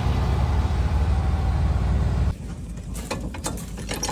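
Farm tractor's diesel engine running steadily close by. About two seconds in it gives way to a quieter run of sharp metal clinks and knocks as the hitch and PTO shaft of a grinder-mixer are handled.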